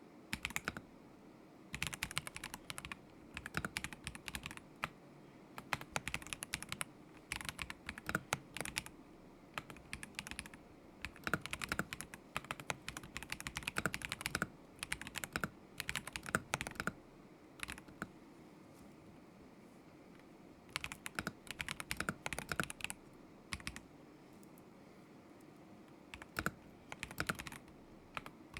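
Typing on a KZZI K75 Pro mechanical keyboard with Moment linear switches: runs of quick key clicks in bursts, broken by short pauses, with two longer pauses in the latter half.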